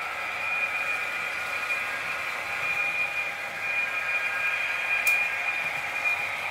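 H0-scale model freight train running on the layout: a steady high-pitched whine from the locomotive's motor and gearing over the running noise of the wheels on the track. A single sharp click about five seconds in.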